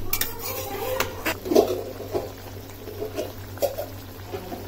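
Spatula stirring thick tomato sauce in a kadhai, with scattered clicks and scrapes against the pan.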